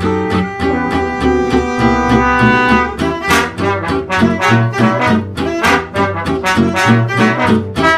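Upbeat background music with brass and a steady beat, the notes getting brighter and punchier about three seconds in.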